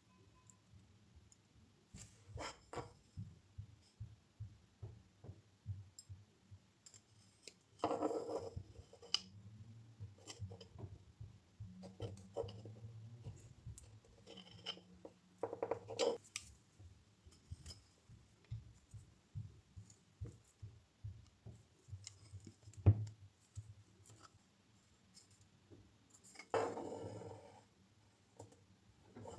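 Hand work at a workbench: many small clicks and taps of wood pieces and tools being handled and set down. Three short scraping or rubbing bursts come along the way, and there is one sharper knock about two-thirds of the way through.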